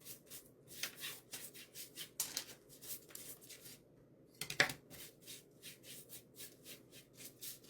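Paintbrush scrubbing paint onto a bare wooden shelf in quick repeated strokes, about four a second, dry-brushing a thin whitewash coat, with one louder stroke about four and a half seconds in.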